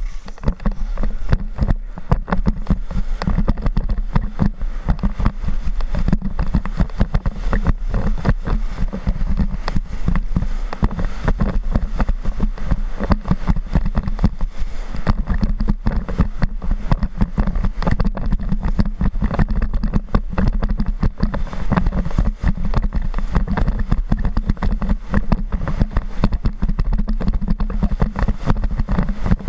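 Wind buffeting an action camera's microphone at skiing speed: a loud, steady low rumble with rapid gusty flutter, over the hiss of skis sliding on packed snow.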